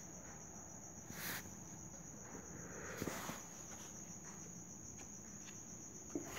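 A cricket trilling steadily in one high, finely pulsing note, with a couple of faint soft rustles about one and three seconds in.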